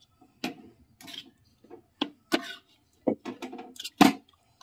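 Pav bhaji being mashed in a pan with a masher: irregular knocks of the masher against the pan and the thick bhaji, about two a second.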